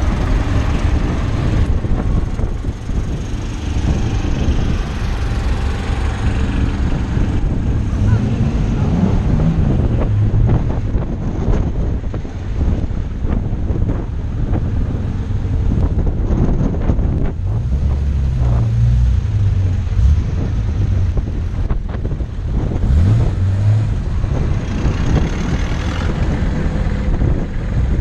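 Vintage and classic cars driving past one after another on cobblestones, their engines running and rising in pitch a few times as they pull away. Wind rumbles on the microphone.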